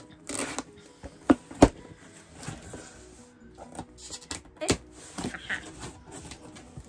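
Cardboard shipping box being opened by hand: tape stabbed and torn, with several sharp knocks and scraping, rustling cardboard, and a flap pulled open near the end. Quiet background music with steady notes runs underneath.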